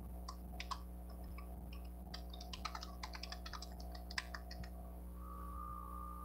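A quick, irregular run of light clicks for about four and a half seconds, like typing, over a steady low hum. A steady high tone starts about five seconds in.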